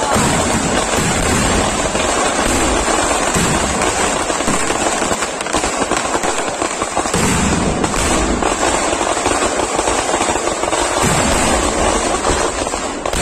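Kerala temple-festival fireworks (vedikettu): aerial shells and firecrackers bursting in a dense, continuous barrage of bangs and crackling, with no let-up.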